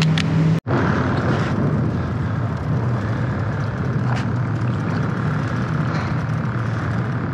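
Steady low engine rumble with a hum under a wash of noise. It drops out for an instant about half a second in.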